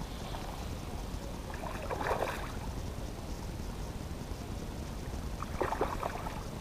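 A hooked salmon trout splashing at the surface close to the bank while being played on the line: two short bursts of splashing, about two seconds in and again near the end, over a steady low wind rumble.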